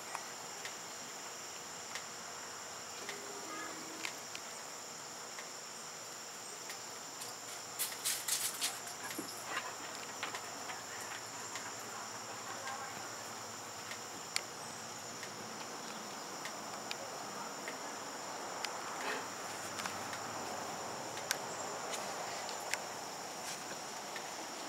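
Steady, high-pitched insect chorus, a continuous drone at two pitches, with a short patch of clicks and rustling about eight seconds in.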